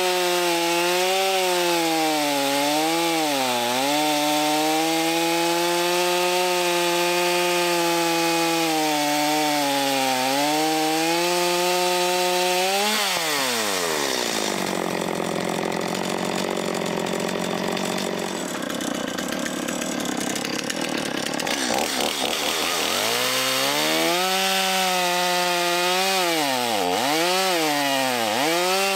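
Stihl MS250 two-stroke chainsaw cutting hard pin oak at high revs, its engine note rising and falling as the chain bites. About halfway through, the pitch drops steeply and the sound turns rough and noisy for several seconds before the revs climb back. The saw is lugging against an over-tightened chain.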